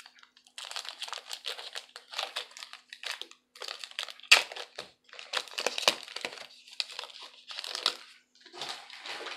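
Crinkling and rustling of trading cards and their packaging being handled, in irregular bursts, with one sharp click about four seconds in.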